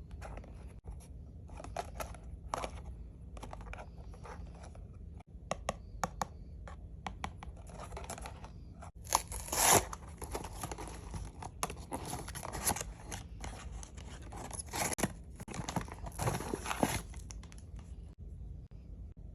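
Blind-box packaging being opened by hand: irregular tearing, crinkling and rustling of wrapping with small sharp clicks, loudest in a burst about nine and a half seconds in.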